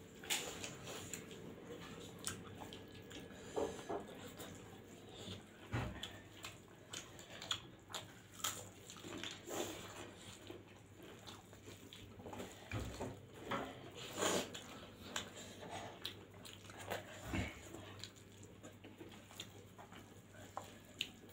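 Close-up eating sounds of people eating rice with dal by hand: irregular wet mouth smacks and chewing, with the squelch of rice being mixed on steel plates.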